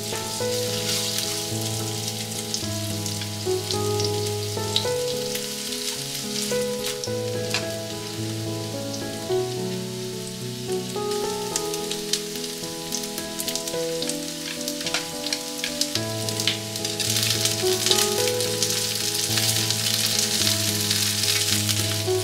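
Chicken thighs sizzling skin-side down in olive oil in a frying pan, a steady crackle of spitting fat that grows louder near the end. Background music plays throughout.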